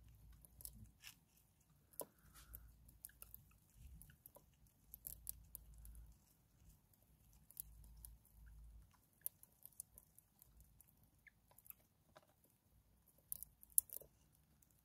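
Harvest mice nibbling a pink wafer biscuit: faint, irregular tiny crunches and clicks, with a couple of sharper clicks near the end.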